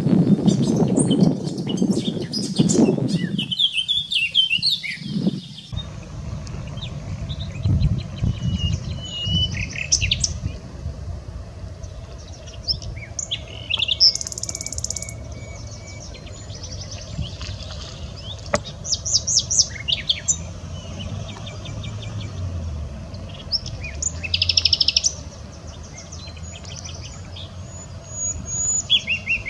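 Common nightingale singing: loud, highly varied phrases with rapid staccato trills and sobbing notes, separated by short pauses. For the first six seconds a different songbird's song is heard instead, over a heavier low rumble.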